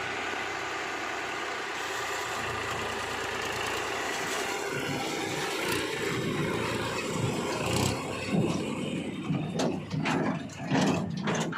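Diesel engine of heavy earthmoving machinery running steadily. In the last few seconds the sound turns into a series of irregular knocks and bangs.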